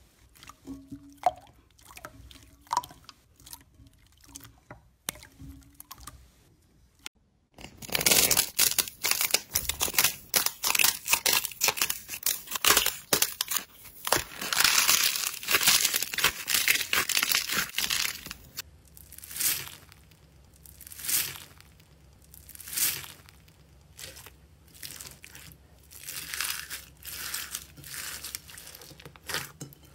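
Hands working slime: soft wet clicks and squelches at first, then about ten seconds of dense loud crackling, then crunchy squeezes coming about every second and a half to two seconds, as foam-bead slime is crushed.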